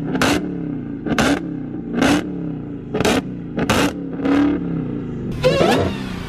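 Dodge Charger SRT Hellcat's supercharged HEMI V8 being revved through its exhaust in short, sharp blips, about one a second, each a quick rise and fall over the idle. Near the end a longer rev comes in.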